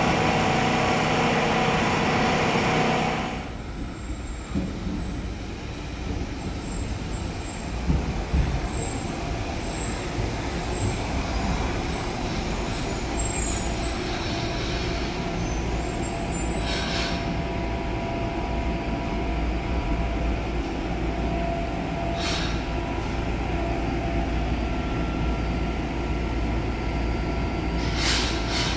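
Brasília Metro train running loud, with several steady whining tones over its noise, until it cuts off abruptly about three seconds in. After that comes a steady low rumble, broken by three short hisses later on.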